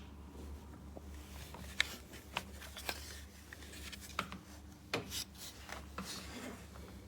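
Handling noises: scattered sharp clicks and taps with short bursts of rustling, irregularly spaced, over a steady low hum.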